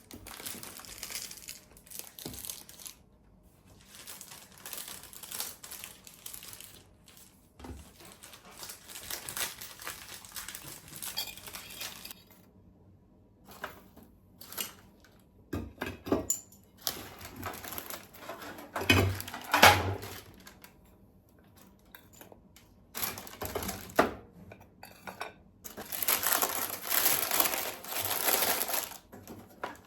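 Packaging crinkling in bursts as it is handled, with light clinks and knocks in between.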